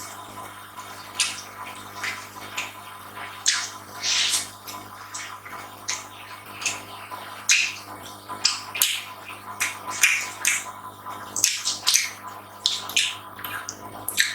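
Close-up eating sounds: wet chewing and mouth smacks, coming in short irregular bursts about once or twice a second.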